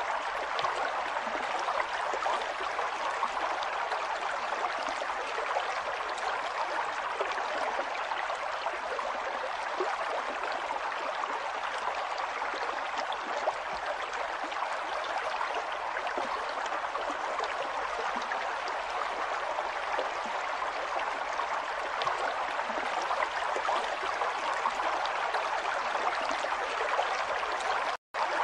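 River water flowing and babbling steadily over stones. The sound drops out for a split second near the end.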